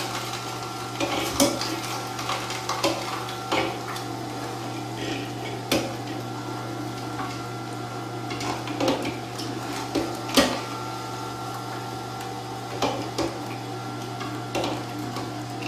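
Samson 9001 masticating juicer running at its slow 80 RPM with a steady motor hum, while fruit and vegetables are pushed down its hopper with a plastic plunger, giving irregular clicks and knocks every second or two.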